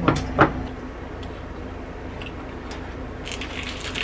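Two sharp clicks of chopsticks against a bowl, followed by a quiet room with a few faint ticks and a soft rustle near the end.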